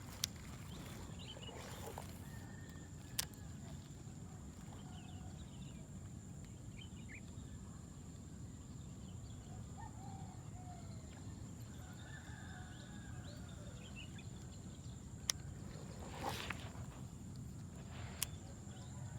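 Outdoor swampside ambience: a steady low background noise with a thin high insect-like tone and scattered faint animal chirps. A few sharp clicks and two short swishes stand out.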